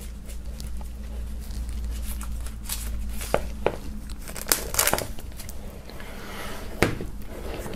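Plastic shrink-wrap on a vinyl LP sleeve being slit with a knife along its sealed seam and pulled back, crinkling, with several sharp crackles and snaps in the second half.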